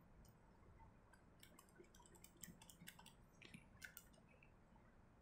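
Faint clicking of a handheld calculator's keys being pressed, a quick irregular run of small clicks from about a second and a half in until about four seconds in, in an otherwise near-silent room.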